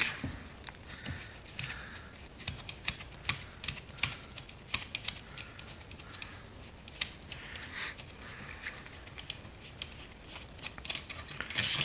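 Irregular light clicks and taps of small metal parts as the end-cover bolts are worked out of the back of an automotive starter motor.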